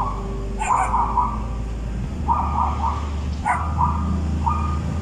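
Shih Tzu puppy giving several short, high yaps, about four spread over a few seconds, over a low steady hum in the car cabin.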